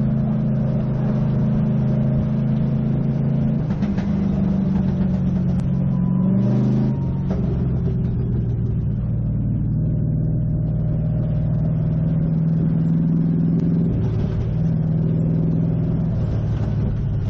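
Race car engine running at low speed, heard from inside the stripped, roll-caged cabin. Its pitch steps down a few times as the car slows.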